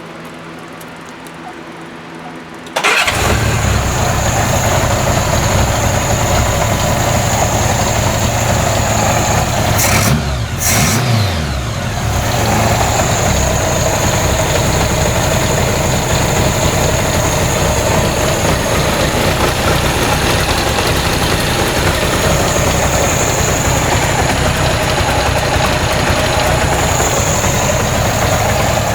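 1983 Honda GL1100 Gold Wing's flat-four engine being started, catching with a sudden jump in loudness about three seconds in, then idling. The speed briefly sags about ten seconds in and recovers. It is idling with a few pinhole vacuum leaks in its intake.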